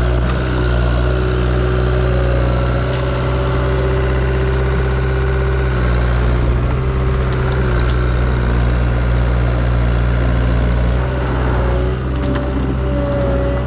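Skid steer engine running steadily under light load during log loading, with a slight drop in level near the end.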